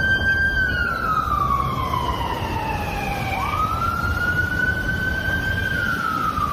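Fire truck siren wailing: a single pitched tone that slides slowly down, sweeps quickly back up about halfway through, and starts falling again near the end, over a steady low rumble.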